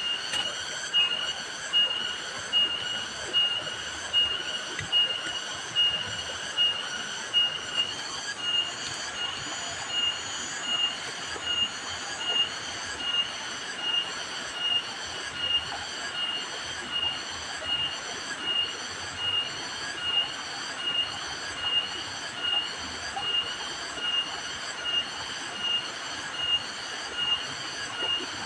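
Insect chorus: a high, buzzing call pulsing evenly, a little more than once a second, without a break.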